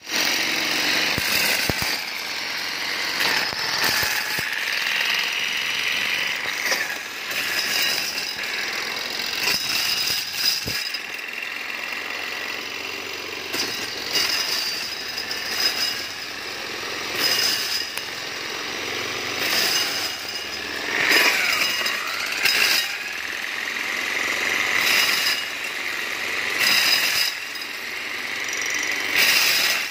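Hand-made maize milling machine running and grinding maize kernels: a continuous rattling mechanical din with frequent sharp knocks.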